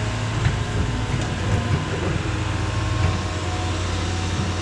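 Diesel engine of heavy earthmoving equipment running steadily under load, its pitch dropping slightly about three seconds in, with a few faint knocks.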